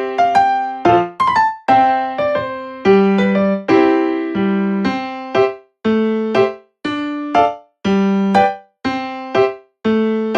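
Background music: a piano or electric piano playing a simple melody with chords, each note struck and then fading, at about two notes a second.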